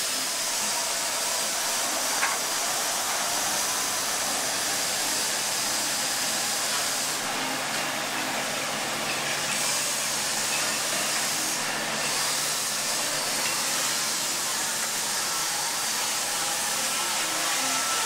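Steady hissing machinery noise from the mobile crane as it lifts the sailboat mast, with a faint low hum joining in the middle.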